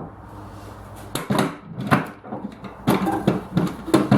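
Irregular wooden knocks and clunks, about seven over three seconds after a quiet first second, from plywood panels and a pedal of a retracting-caster mockup being handled.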